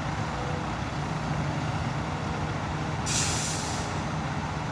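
Heavy diesel construction machinery running steadily as an excavator scoops dirt to load a dump truck, with a short burst of air hiss about three seconds in.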